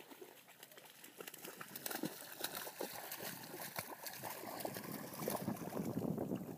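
A dog wading through shallow pond water, its legs sloshing and kicking up many small splashes. The splashing grows louder from about a second and a half in.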